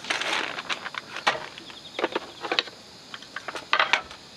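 Objects being handled: a short rustle, then a string of sharp clicks and light knocks, the loudest a quick cluster near the end.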